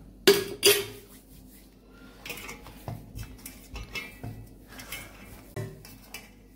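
Stainless steel plates clanking: two sharp ringing clanks about half a second apart near the start, then lighter knocks and scrapes as dough is kneaded in a steel plate. Near the end comes another clank as a steel plate is set over the dough as a cover.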